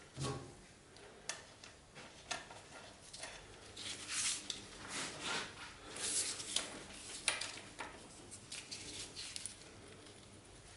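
Gloved hands handling a cast-iron tilting angle plate: a thump right at the start, then light metallic clinks and taps, with short scrubbing rubs over its machined face about four and six seconds in.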